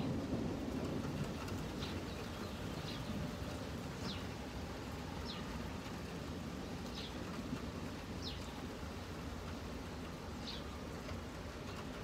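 Low rumble of distant thunder that fades over the first couple of seconds and leaves a steady low background. A bird calls above it, a short high falling chirp about seven times, one every second or two.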